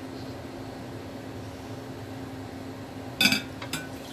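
Water simmering in a stainless steel pot over a steady low hum from the kitchen appliances. About three seconds in, a sharp ringing clink of metal on the pot as the strainer lid over it is lifted away, followed by a lighter tap.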